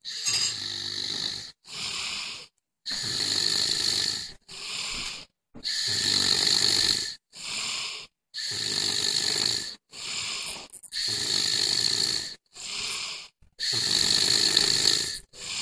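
A sleeping man snoring in a steady rhythm. Each long snore is followed by a shorter one, and the pair repeats about every two and a half seconds with brief silences between.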